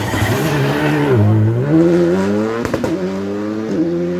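Rally2 rally car's engine coming off the throttle and dropping in pitch about a second in, then accelerating hard with its pitch rising through two quick upshifts.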